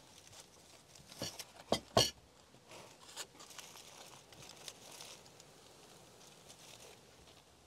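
Aluminium foil around a hot baked lamb shoulder crinkling and crackling as it is handled, with a few sharp crackles about one to two seconds in and lighter crinkling after.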